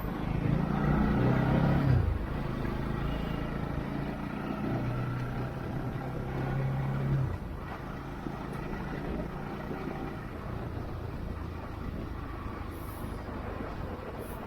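Bajaj Pulsar NS200 motorcycle engine running while being ridden: a steady engine hum, loudest in the first two seconds, that drops away about seven seconds in, leaving a steady rushing road noise.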